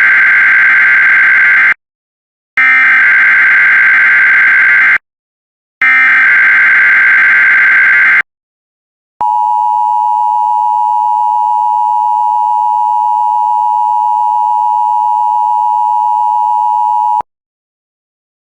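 Emergency Alert System signal announcing a tornado watch. Three harsh, screechy SAME digital header bursts of a couple of seconds each, with short gaps, are followed by the steady two-tone EAS attention tone for about eight seconds, which cuts off abruptly.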